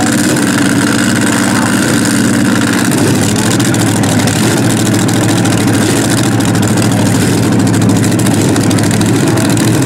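Super modified pulling tractor's engine idling loudly, with a small shift in its note about three seconds in.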